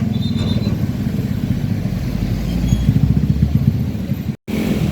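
Heavy truck's diesel engine running close by, a low, rapidly pulsing drone. The sound cuts out for an instant near the end, then resumes.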